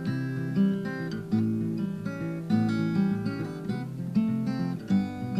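Background music: the instrumental intro of a song, played on acoustic guitar with picked and strummed chords at a steady pace.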